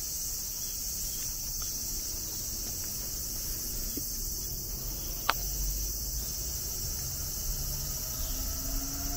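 Steady, high-pitched chorus of insects singing without a break, with a single sharp click about five seconds in.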